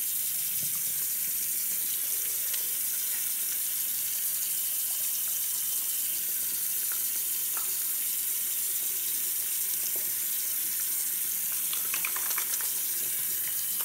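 Bathroom sink faucet running a steady stream into the basin. A few faint wet hand-rubbing sounds come in near the end.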